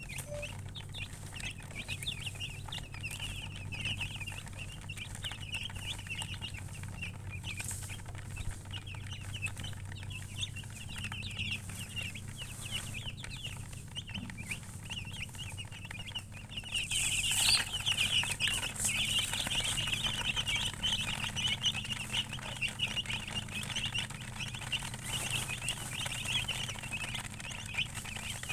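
A group of chicks peeping, a dense run of rapid high chirps that grows louder about two-thirds of the way through, over a steady low hum.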